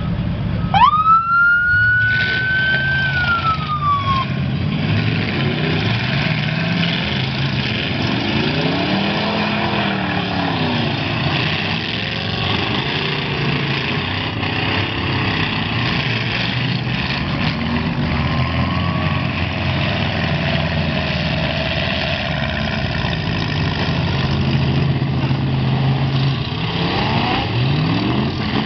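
Demolition derby cars' engines revving and running together, their pitch rising and falling over a steady din of motors. About a second in, a siren winds up, holds its note and falls away about four seconds in.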